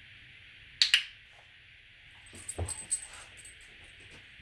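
Two sharp clicks close together about a second in, then a short spell of light metallic jingling with a soft knock as the dog moves about on the floor.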